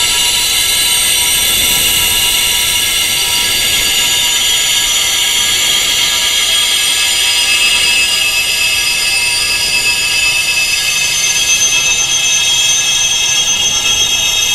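Metal wind chimes ringing in a dense, unbroken wash of many high overlapping tones that hold steady and blend into one another.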